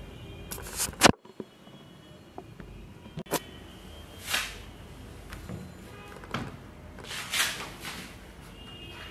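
Handling sounds of an Asus ZenBook laptop: a sharp click about a second in, then a few lighter clicks and soft brushing swells as the lid is moved and closed by hand.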